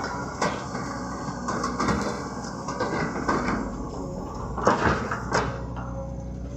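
Excavator diesel engine running steadily, with irregular clanks and creaks from the working arm and bucket, the loudest knocks about five seconds in.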